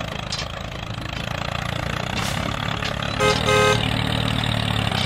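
Tractor engine running steadily, with two short horn toots a little over three seconds in.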